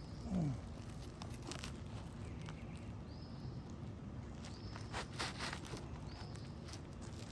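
Outdoor background with a short high call repeating about every second and a half, like a bird, over a few faint scrapes and taps. A short low sound falling in pitch, near the start, is the loudest thing.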